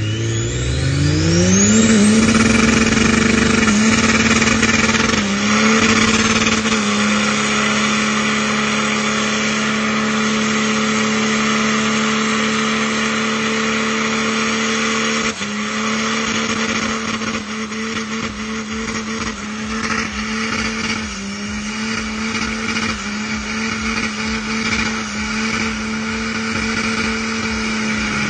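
Car engine revving up hard over the first two seconds, then held at high revs for a long burnout, with the hiss of the spinning tyres beneath it. The pitch stays steady, dipping briefly a few times as the revs are caught and held again.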